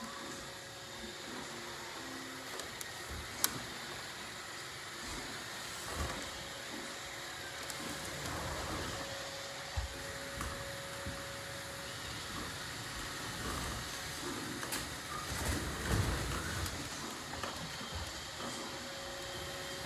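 Roomba robot vacuum running with a steady whirring hum, with a few sharp clicks and a louder low rumble about three quarters of the way through.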